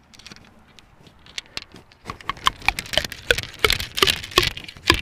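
Ramrod knocking and scraping down the barrel of a muzzleloading flintlock rifle as a lead ball is rammed down onto the powder charge: a quick run of irregular clicks and knocks with a slight metallic ring, sparse at first and busier from about two seconds in.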